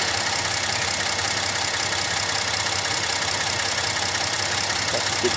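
Ford Expedition's 3.5-litre EcoBoost V6 idling steadily under the open hood.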